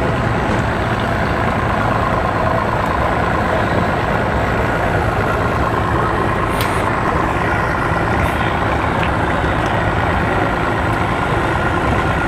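Outboard boat motors idling with a steady drone as boats maneuver at low speed near the ramp.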